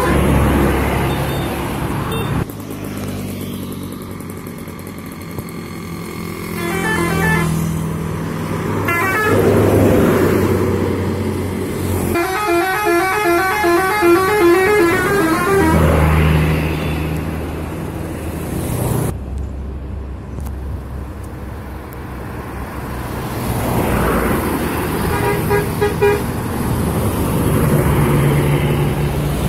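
Indonesian bus 'telolet' musical horns playing quick multi-note tunes in several bursts, the longest lasting about four seconds. Under them, bus engines run and traffic passes.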